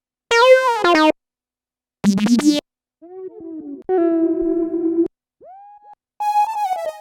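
Omnisphere 3 software synthesizer patches being auditioned one after another: about five short synth phrases in different tones, some with gliding pitch, each cut off abruptly with brief silences between them.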